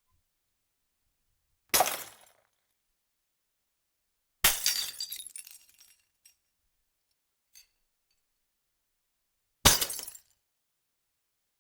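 AI-generated glass-breaking sound effects from Stable Audio Open 1.0: three separate shatters, about two seconds, four and a half seconds and ten seconds in. The middle one is the longest, trailing off over a second or so with small tinkles, and two faint clinks follow it.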